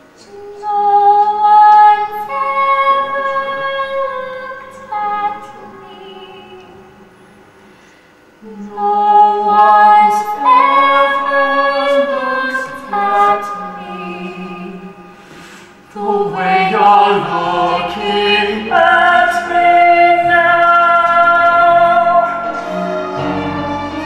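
Musical-theatre singing with instrumental accompaniment: long held vocal notes in three swelling phrases, the last starting about two-thirds of the way through with deep bass added and staying loud.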